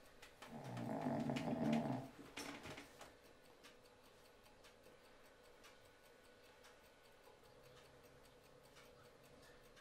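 A sleeping person snoring: one long snore starting about half a second in, and a much fainter one near the end.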